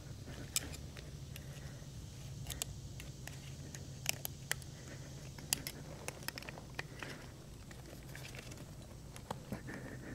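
Scattered light metallic clicks and scraping as a snap ring is worked into its groove on a Delphi CVC6 AC compressor clutch with snap ring pliers, over a low steady hum.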